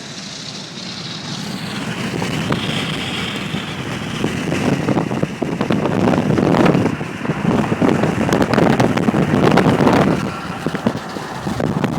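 Road and wind noise heard from the back seat of a moving car, with wind buffeting the microphone that grows louder and gustier about halfway through and eases near the end.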